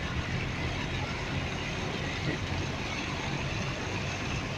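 A vehicle's engine running steadily under a constant wash of water noise as it moves slowly through floodwater.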